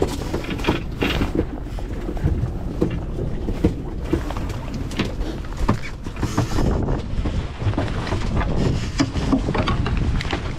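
Sounds on the deck of a fishing boat at sea: a steady low rumble with irregular knocks and clatter scattered throughout.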